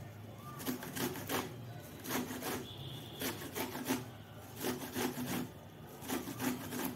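Fresh corn cob rasped against a metal hand grater in a series of short strokes, grating the kernels off.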